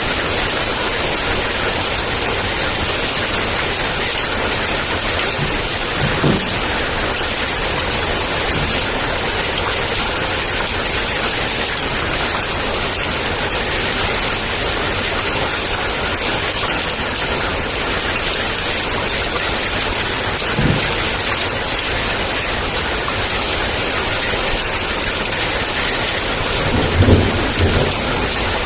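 Heavy downpour of rain falling steadily, with a few short low thunder rumbles; the strongest comes near the end.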